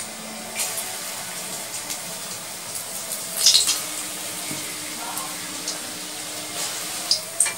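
Hot oil sizzling steadily in a metal kadai over a lowered gas flame as small dollops of bottle gourd, carrot and semolina batter are dropped in by hand. The sizzle flares briefly a few times as fresh batter hits the oil.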